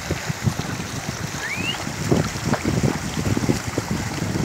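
Horses wading through a shallow stream, their hooves splashing in rushing water, with wind buffeting the microphone. A short rising whistle sounds about a second and a half in.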